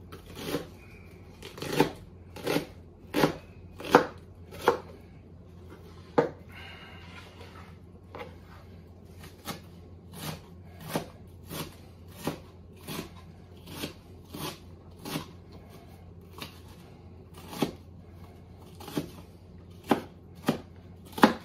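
A chef's knife chopping an onion on a wooden cutting board: separate knocks of the blade on the board, roughly one a second, with a pause of a few seconds about a third of the way through.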